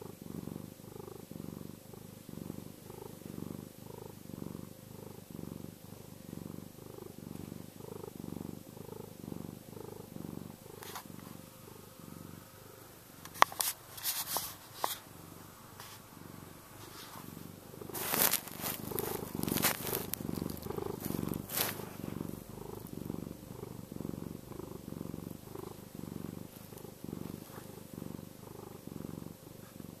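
Domestic cat purring steadily in even low pulses, close to the microphone. About halfway through there is a sharp click, the loudest moment, followed a few seconds later by a spell of scratchy noise.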